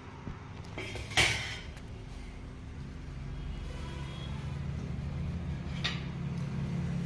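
Two sharp clinks of kitchen utensils, one about a second in and a fainter one near six seconds, over a steady low hum that grows louder toward the end.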